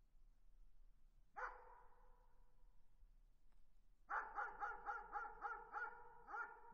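A dog barking in the distance: one bark about a second in, then a quick run of about eight barks at roughly four a second, and one last bark near the end. Each bark trails off in a faint echo.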